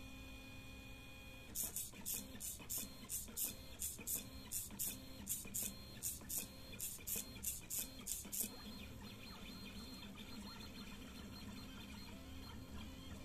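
Motors of a DIY drawer-slide XY pen plotter driving the pen in short strokes. About a second and a half in, a run of high buzzing pulses starts, roughly three a second. Near the two-thirds mark it gives way to a fainter steady whirr.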